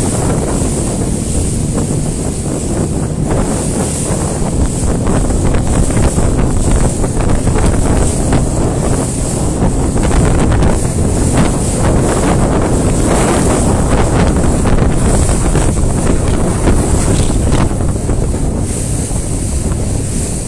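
Strong wind buffeting the microphone on a fast-moving inflatable boat, over water rushing and splashing past the hull. Steady and loud throughout.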